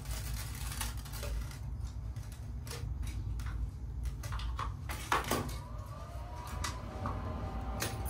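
Scattered light knocks and clatter of cooking gear being handled, with one sharper knock about five seconds in, over a steady low rumble.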